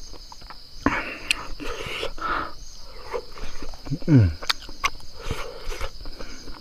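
Close-up chewing, with wet mouth clicks and lip smacks while eating a meal of buffalo innards. Under it runs a steady high-pitched insect drone, and a short low falling hum comes about four seconds in.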